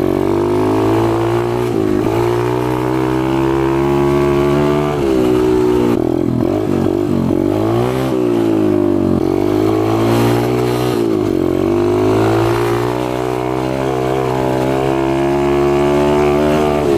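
Four-stroke pit bike engine running and revving, its pitch rising and falling over and over, with several quick drops and pickups in revs about five to eight seconds in.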